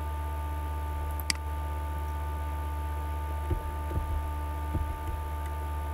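Steady electrical hum on the recording, with one sharp click about a second in and a few soft low knocks later.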